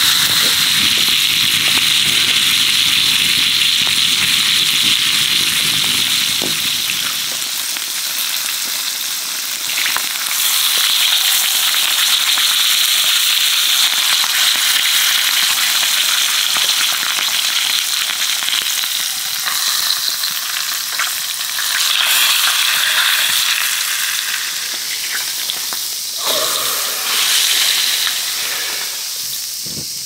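Thick steak sizzling hard in a hot frying pan over a wood fire, a steady loud hiss of searing fat and juices that swells several times as the meat is moved and turned onto its edge, then dies down near the end.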